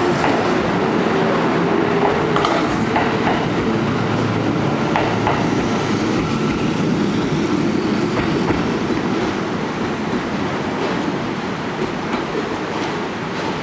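Kintetsu 12400 series limited express electric train pulling out and running past, its wheels clicking over rail joints, with a whine in the first few seconds. The sound eases off near the end as the train draws away.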